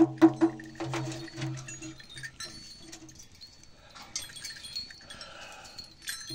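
A shaman's dhyangro frame drum struck twice more, the beats stopping about half a second in. After that, small bells and metal ornaments on his costume jingle and clink faintly and irregularly.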